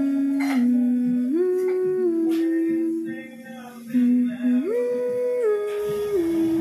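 Background music: a slow melody of long held notes that slide from one pitch to the next.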